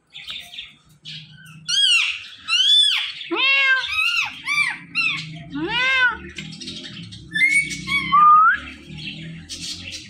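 Ringneck parrot giving a string of short squawking calls, each rising and falling in pitch, with a couple of rising whistled notes near the end.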